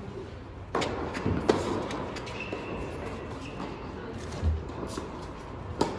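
Tennis ball struck by racquets and bouncing on an indoor hard court during a rally, each sharp hit echoing in the large hall. The first hit, the serve, comes under a second in and the loudest crack comes about a second and a half in. A high squeak follows near the middle, and another hit near the end.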